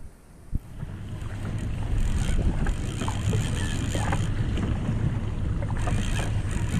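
Small boat underway: water and wind rushing, building over about the first two seconds to a steady loud rush, with a sharp knock about half a second in.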